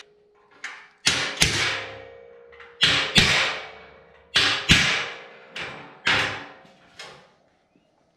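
Hammer blows on steel angle iron from an old bed frame, knocking off the rivet studs that held its legs on: about ten sharp metal strikes, mostly in pairs, each ringing out briefly.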